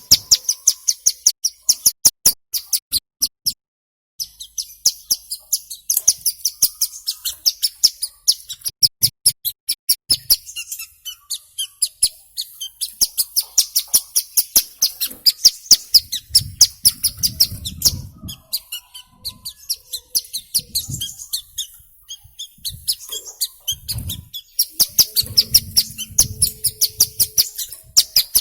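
Ciblek gunung (a mountain prinia) calling in long runs of rapid, very high chip notes, about ten a second, with a short break about four seconds in.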